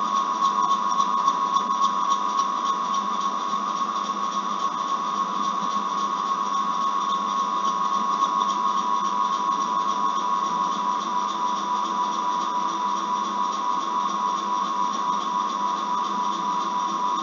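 Steady background hum: a constant whining tone over an even hiss, unchanging throughout.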